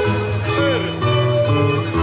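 Plucked-string accompaniment of guitar and Portuguese viola playing a traditional desafio tune.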